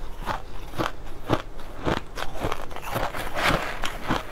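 Crushed ice being chewed: a steady run of crisp crunches, about two a second, with one longer, grittier crunch past the middle.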